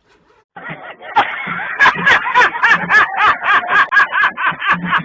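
A person laughing loudly and hard, a fast run of ha-ha bursts that starts about half a second in and keeps going.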